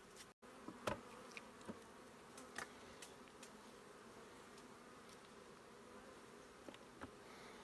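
Honey bees buzzing around an opened log hive: a steady faint hum, with a few scattered small clicks and knocks, the loudest about a second in. The sound cuts out for a moment just after the start.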